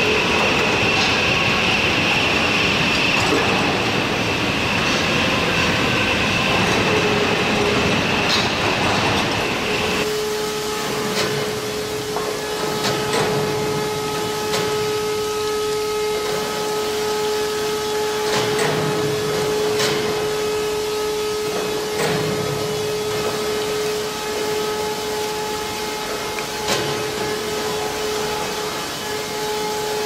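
Foundry floor machinery noise: a steady rushing sound with a high whine, which changes abruptly about ten seconds in to a steady hum of several tones with scattered clanks and crackles while molten metal is poured.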